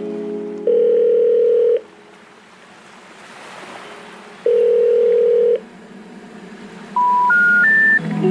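Telephone signal tones: two long, steady ringing tones a few seconds apart over faint hiss, then three short beeps climbing in pitch, the special information tone of a call that cannot be completed.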